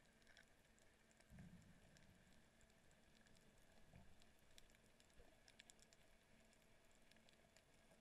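Near silence, with faint scattered clicks and a few soft low thumps.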